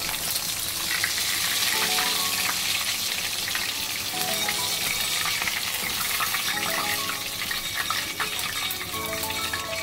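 Pomfret fish frying in shallow oil in a pan: a steady, crackling sizzle of hot oil, with background music playing under it.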